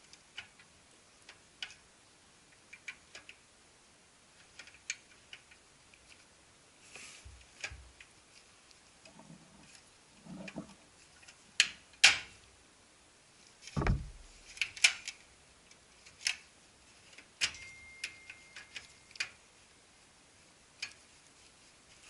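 Scattered clicks, taps and knocks of copier parts being handled and fitted during a transfer roller replacement, with a heavier thud about 14 seconds in.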